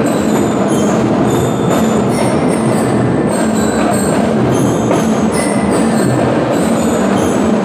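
A school drum and lyre corps playing: massed marching drums in a dense, steady beat, with bell lyres ringing short high notes over them.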